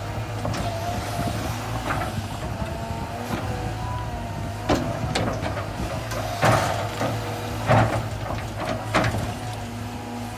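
Cat 320 hydraulic excavator running, its diesel engine humming steadily under a wavering hydraulic whine, while the bucket digs at a eucalyptus stump. From about halfway in come four or five loud, sharp cracks and knocks as the bucket works the stump and roots.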